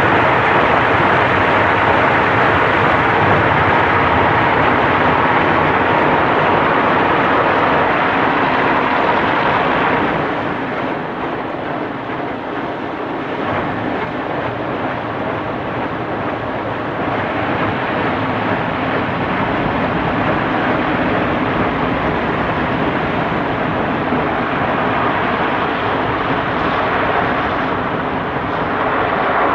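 Kärcher automatic car wash heard from inside the car: water spraying onto the glass and body while the wash machinery runs. The noise drops in level about ten seconds in and builds back up a few seconds later.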